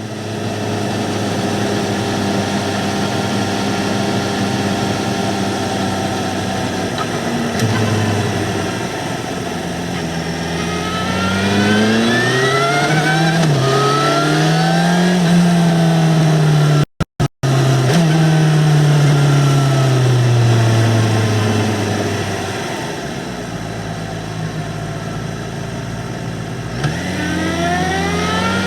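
2009 Yamaha XJ6-N's 600 cc inline-four through its stock exhaust. It runs steadily at first, then accelerates, its note climbing from about ten seconds in, then falls away as it slows and settles. It rises again near the end. The sound cuts out completely for a moment a little past halfway.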